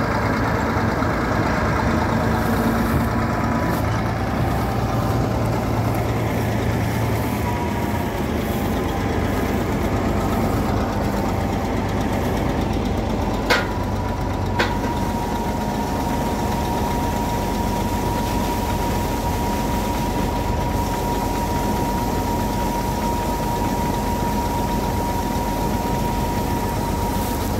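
Bizon Z040 combine harvester running steadily. About halfway there are two sharp clicks, after which a steady whine joins the engine as the unloading auger runs.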